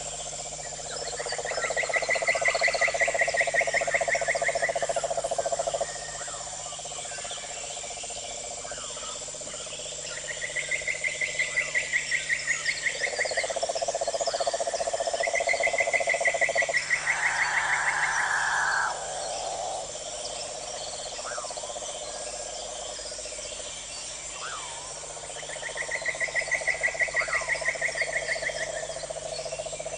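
Night chorus of frogs trilling, with insects: long, rapidly pulsed trills of several seconds each that overlap and take turns, over a steady high insect drone. A few short faint calls come in between the trills.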